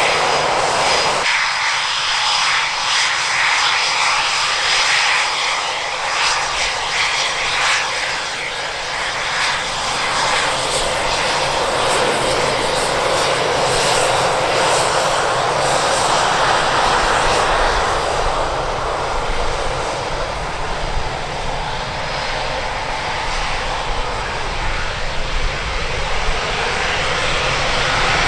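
Eurofighter Typhoon's twin Eurojet EJ200 turbofans running, a loud, continuous rush of jet noise that holds fairly steady throughout.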